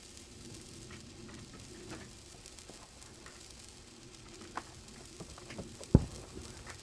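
A 10-inch color sparkler burning with a steady faint fizz and scattered small crackles, with one sharp thump about six seconds in.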